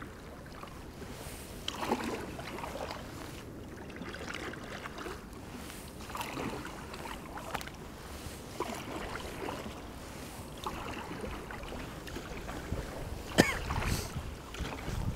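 Kayak paddle strokes, the blades dipping and splashing in calm water every second or two, over a low steady rumble of wind on the microphone, with one sharp knock near the end.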